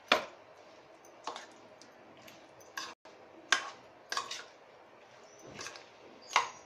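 A spoon clinking and knocking against a bowl while paneer cubes, onion and capsicum are stirred into a thick yogurt-and-spice marinade: sharp clinks at irregular intervals, roughly one a second.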